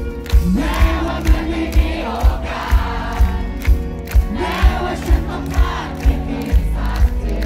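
Live band playing a Thai pop ballad, with a male lead singer, a steady kick drum about twice a second and bass guitar. Audience voices are mixed in, heard from within the crowd.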